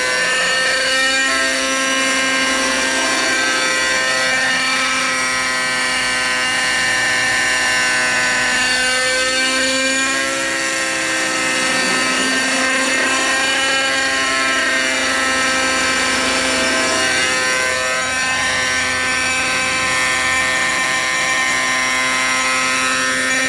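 Gasoline-engined radio-controlled helicopter in flight, its engine and rotors running steadily at a constant pitch. The tone swells and sweeps hollowly as the helicopter moves about the sky and comes down low near the end.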